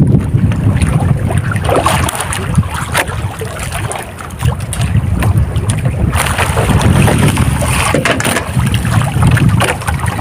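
Wind buffeting the microphone with a loud, rough low rumble, over water sloshing against a small boat's hull, with scattered light knocks.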